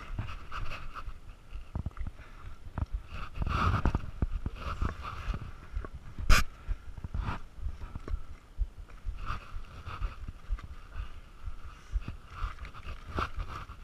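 Close handling noise: rustling and crinkling of a plastic bag and a hydration pack being handled right at the microphone, with scattered knocks and one sharp click about six seconds in.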